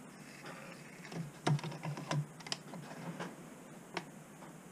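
A quick run of small clicks and taps, with one more a little later: a bare power-supply circuit board being handled and set down on the stage of a bench stereo microscope.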